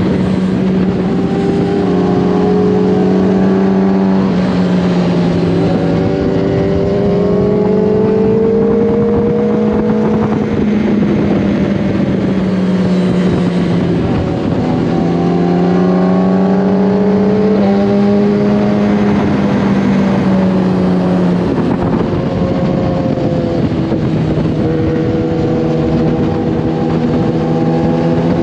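Motorcycle engine running under load on a twisty road. Its pitch climbs and eases off with the throttle and drops suddenly several times, over a steady rush of wind noise.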